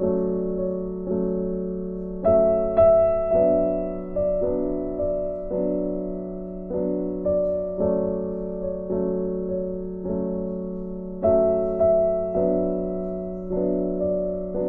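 Background music: a slow, gentle piano piece with a new chord struck about once a second over a held low note. The phrase repeats after about nine seconds.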